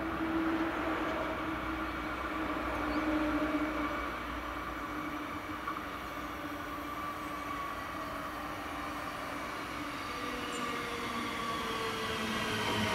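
Alstom Coradia Continental class 1440 electric multiple unit approaching and running into a station, its electric drive whining in several tones over the rolling noise. The tones fall in pitch and the sound grows louder near the end as the train nears and slows.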